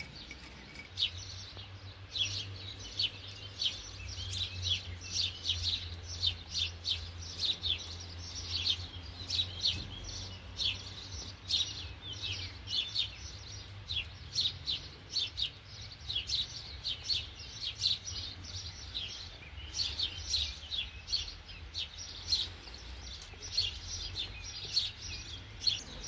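Cockatiels chirping in an aviary: a dense, uneven run of short high chirps, with a low steady hum underneath.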